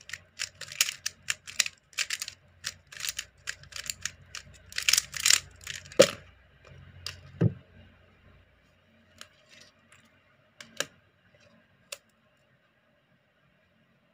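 Gan 356M magnetic 3x3 speedcube being turned by hand: quick runs of plastic clacks as the layers snap round for about six seconds, then only a few separate clicks.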